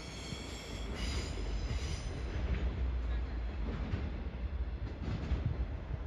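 Train running on the rails with a steady low rumble, its wheels squealing high-pitched through the first two seconds and faintly again about five seconds in.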